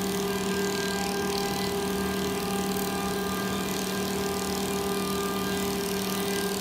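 CNC wood lathe running: a steady motor hum with an even hiss above it, unchanging throughout.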